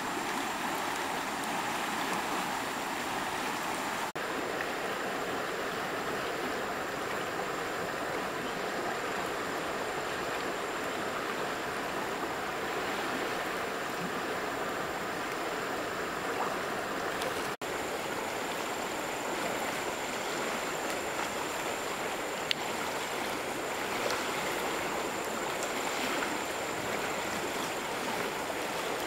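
River water flowing steadily over a shallow, rippling stretch, a constant rushing wash.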